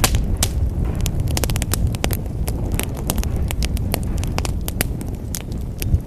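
Wood fire in a fireplace crackling: many irregular sharp snaps and pops over a steady low rumble of flames, with one louder pop near the end.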